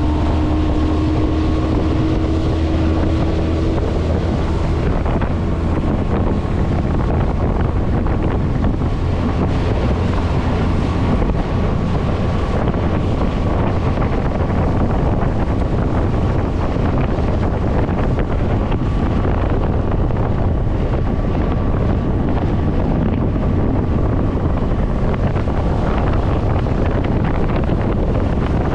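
A 25 hp outboard motor running hard at high throttle, pushing a jon boat on plane on a stainless steel prop, with heavy wind buffeting the microphone and water rushing past the hull. The prop overloads the engine, holding it about 500 RPM lower than the aluminum prop did.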